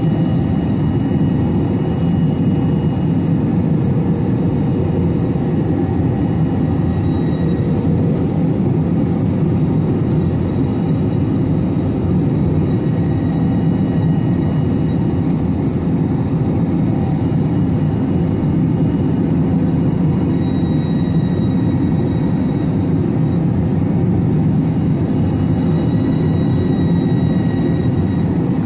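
Steady cabin noise inside an Airbus A321-211: a low, even rumble of the engines and airflow.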